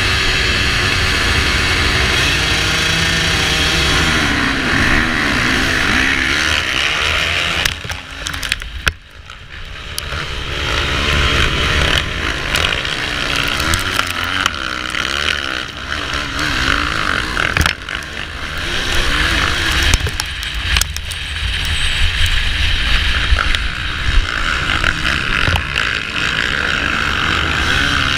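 Motocross bikes holding their engines at high revs behind the starting gate, then the field launching and racing, with the onboard dirt bike's engine revving up and down through the gears. The sound drops briefly about eight seconds in, then comes back loud with frequent surges.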